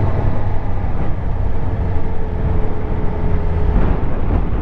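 Suzuki GSX-R750 inline-four engine running steadily as the motorcycle is ridden along at a steady pace, heard from the rider's helmet with wind noise over it.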